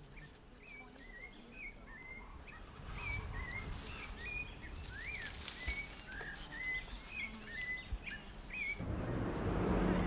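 Forest birds calling in short chirped and whistled notes, about two a second, over a steady high insect drone. The drone cuts off abruptly about nine seconds in, and a low outdoor rumble takes over.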